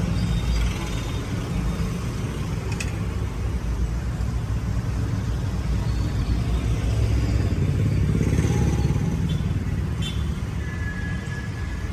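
Steady low rumble of road traffic, with a single brief click about three seconds in.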